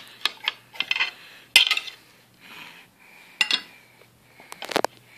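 A spoon clinking and knocking against dishes during a meal: a string of sharp clicks at uneven intervals, the loudest about a second and a half in and a quick pair near the end.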